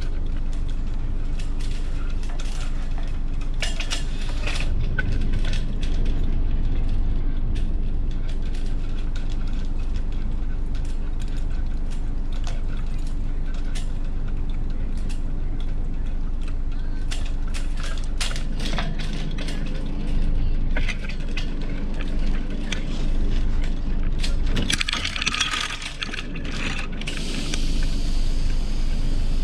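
Sailboat rigging hardware on a Hobie Cat 16 catamaran's mast clicking and clinking as its lines and fittings are handled, with a burst of rustling about three-quarters of the way through. A steady low rumble runs underneath.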